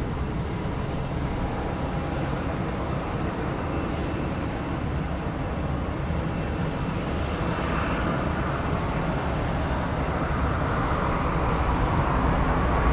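Boeing 777-200ER's twin GE90 turbofans at takeoff thrust: a steady low rumble that grows louder as the jet rotates and climbs out toward the microphone, with a faint whine coming in during the last few seconds.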